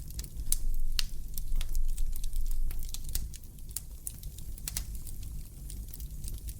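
Wood fire crackling in a fireplace: irregular sharp pops and snaps, several a second, over a low rumble that is louder during the first half.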